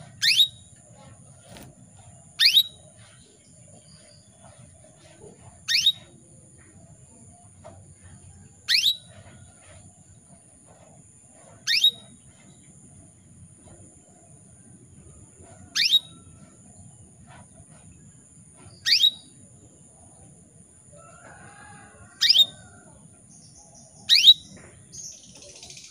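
Female canary calling for a male: nine single short chirps, each a quick downward-sweeping note, spaced about every two to four seconds.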